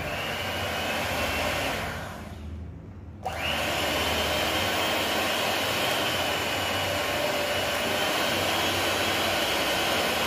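Aicok 300 W electric hand mixer's motor running with its beaters spinning in the air, a steady whine. It winds down about two seconds in, then starts again sharply a little after three seconds and runs steadily at a slightly higher pitch.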